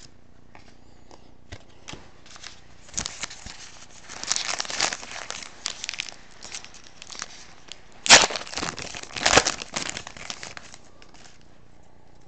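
Trading card pack wrapper crinkling and tearing as a new pack is opened by hand. It comes in irregular crackly bursts, loudest in two rips about 8 and 9 seconds in.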